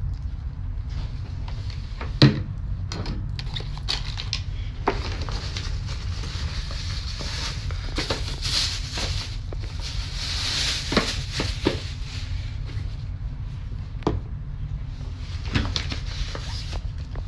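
Unpacking handling noise: scattered knocks and clicks of bottles and luggage, the sharpest about two seconds in, and a plastic bag rustling in the middle, over a steady low hum.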